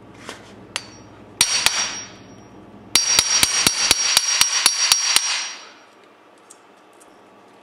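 Hammer striking a manual impact driver seated in a stripped screw, hammering to shock the stuck screw loose. Two blows about a second and a half in, then a quick run of about a dozen blows, roughly five a second, each with a metallic ring.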